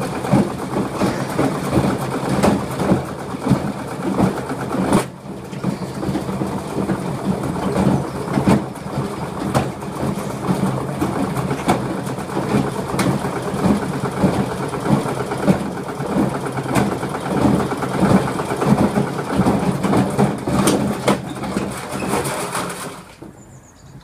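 Hotpoint Aquarius 6 kg washing machine running with a load of drink cans and bricks: a steady motor hum under continuous irregular clattering and banging as the load tumbles in the drum. It cuts off suddenly about a second before the end.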